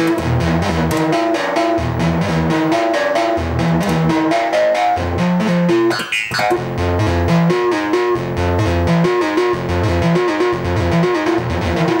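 Patched modular synthesizer running a sequenced pattern of short, rapidly stepping pitched notes over a pulsing bass, with fast regular ticking. About six seconds in, a brief noisy burst cuts through the pattern.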